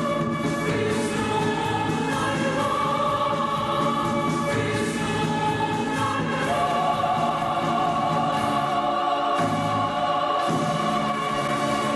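Church choir singing a Korean gospel hymn in long, held chords.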